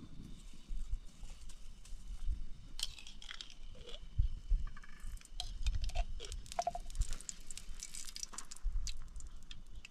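Eggs being cracked against a stone and emptied into a metal pan: scattered light taps, clicks and low knocks, coming thicker in the second half, with a spoon clinking in the pan.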